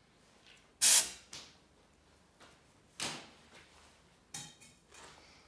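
Short blasts of compressed air from an air line fired into a stainless steel tube. There are four sharp bursts, the first by far the loudest, each dying away within about half a second. They are quite loud.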